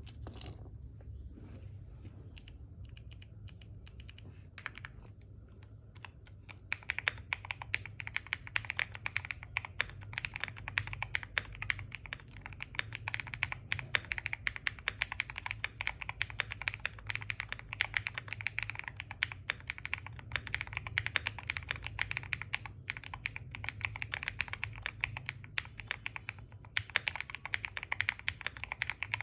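Typing on a QK80 mechanical keyboard with G-Square White Warrior V2 switches on a POM plate and Cherry-profile keycaps. A few scattered keystrokes in the first six seconds, then fast, continuous typing.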